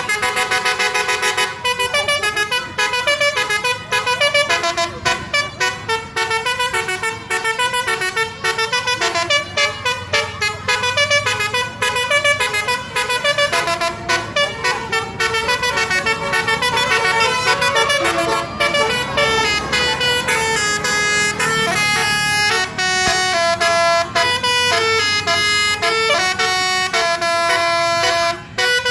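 Bus 'telolet' horn (basuri), a multi-tone musical horn, playing a rapid tune: quick short toots in the first half, longer held notes in the second, with a brief break near the end.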